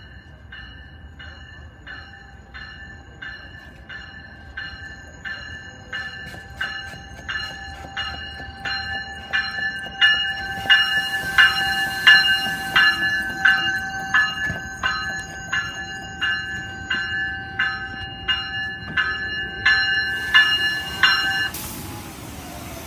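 Bell of an arriving Amtrak San Joaquin passenger train ringing steadily about twice a second as the train pulls into the station. It grows louder as the front of the train passes and stops suddenly near the end, over the low rumble of the train rolling in.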